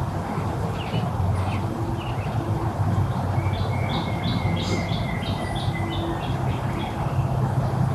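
A songbird sings a quick series of about a dozen chirped notes, roughly four a second, from about three seconds in until near the end. Scattered single bird calls come before it, over a steady low rumble.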